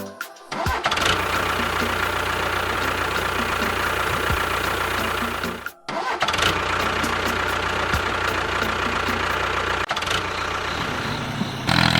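A small motor running steadily with a high, even hum, in two stretches broken by an abrupt cut about six seconds in.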